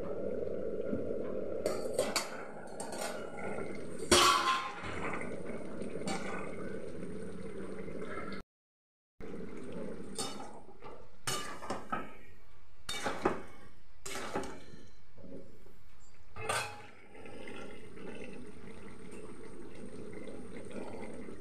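A metal spatula scraping and knocking against a steel wok as jackfruit curry is stirred, over a steady hiss of the gas burner and the simmering pan. There is a loud metal clank about four seconds in, and a run of scrapes and knocks in the second half.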